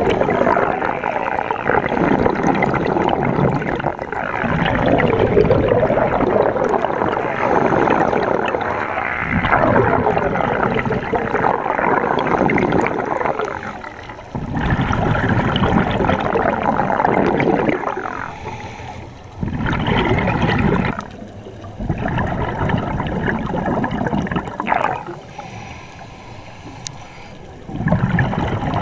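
Scuba diver's exhaled air bubbling and gurgling out of the regulator, heard underwater through the camera housing, in long bursts of a few seconds with short breaks between breaths.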